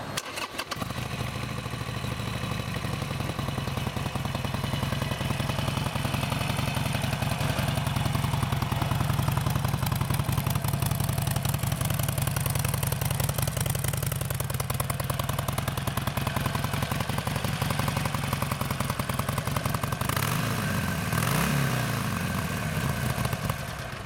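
Harley-Davidson Sportster 1200's fuel-injected 1200cc V-twin idling with a steady pulsing beat. Near the end the throttle is blipped once, briefly raising the revs before they drop back to idle.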